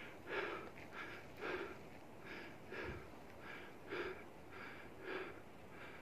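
A person breathing hard from climbing a steep trail: short, even puffs of breath in and out, about two a second.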